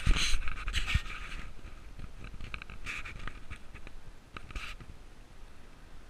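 Sled dogs barking and yelping in short, irregular bursts, densest in the first second and a half and coming back a few times after.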